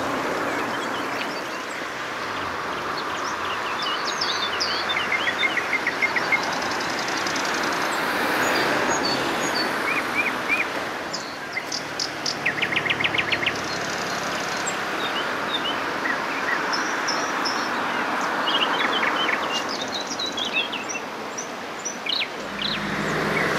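Songbirds chirping and trilling, with a fast, even trill about halfway through, over a steady rushing noise.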